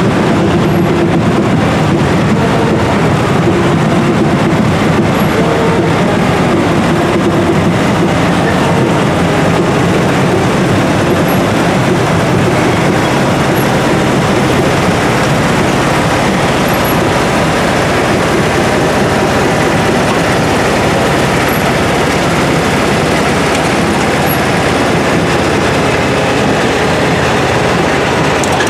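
Engines of vintage construction machines running steadily as they drive slowly past: a Fuchs 301 wheeled excavator towing a site compressor, then a small motorised dumper.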